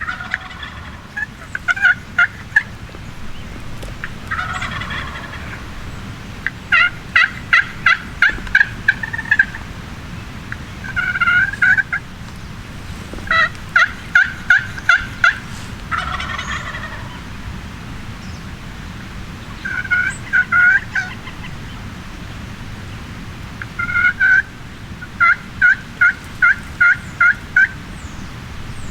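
Wild turkeys yelping: strings of evenly spaced notes, about three a second, coming in bursts every few seconds, with a few rougher, raspy calls in between.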